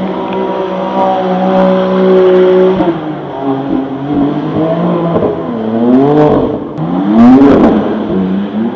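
BMW coupe's engine held at steady high revs while drifting in circles on wet pavement. About three seconds in, the revs start rising and falling in quick waves as the car slides around, loudest near the end.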